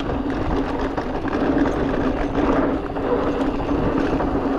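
Rush of wind and tyre noise on a POV camera while an e-bike is ridden down a dirt trail, with a steady low hum throughout.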